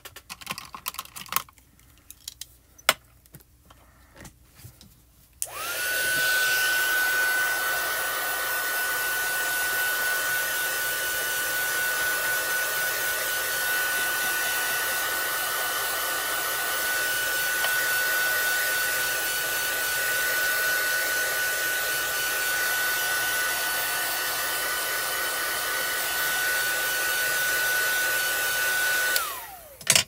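A few light clicks of tools and paper being handled, then a craft heat tool switches on about five seconds in and blows steadily with a high whine for over twenty seconds, drying freshly stamped pigment ink; its whine winds down as it switches off near the end.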